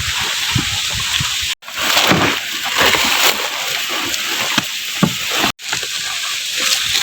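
Motorised corn sheller threshing ears of corn, making a dense, steady rattling hiss of kernels and husk pieces pouring through, with scattered low knocks. The sound cuts out for an instant twice.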